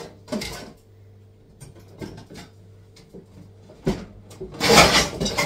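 Kitchenware being handled: a few brief knocks, then a longer, louder scraping rub near the end as dishes are shifted about.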